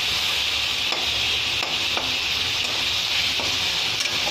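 Chicken pieces sizzling as they fry in hot oil in a wok, a steady hiss, with a few faint scrapes of a steel spatula stirring them.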